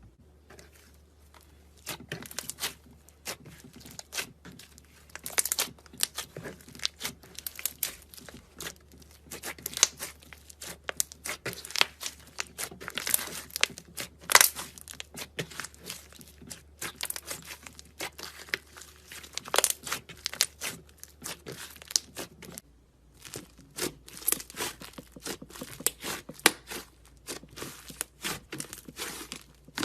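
Slime being stirred and squeezed by hand, making a dense run of irregular sticky clicks, crackles and pops.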